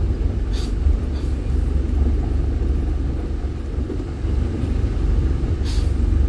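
Dump truck driving, a steady low engine and road rumble, with two short bursts of hiss, one about half a second in and one near the end.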